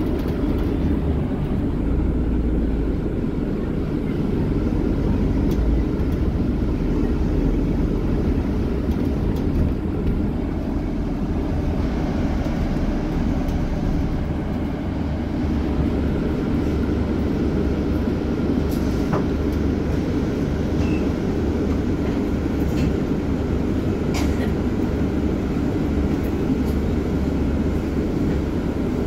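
Steady rumble of a double-decker bus on the move, heard from its upper deck: engine and road noise, with a few faint ticks near the end.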